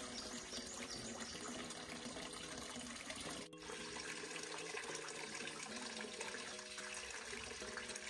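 Steady rushing of water, with a brief dip about halfway through.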